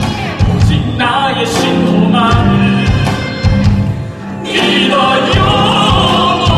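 Cast ensemble singing a musical-theatre number in Korean with piano accompaniment; the voices swell fuller and louder about two-thirds of the way through.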